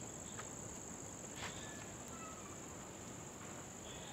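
Insects trilling steadily and high-pitched, faint, with a couple of soft ticks about half a second and a second and a half in.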